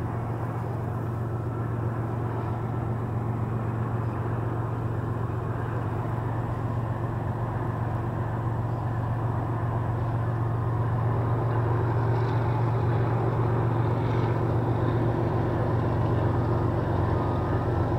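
A CN freight train's diesel locomotive approaching: a steady low engine drone that grows slowly louder.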